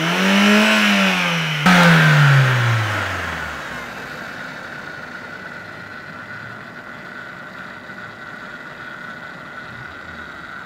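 1996 Ford Escort 1.6 four-cylinder engine, running on petrol, revved once: the note climbs, then falls back over about three seconds and settles into a steady idle. A constant high whine sits over the idle.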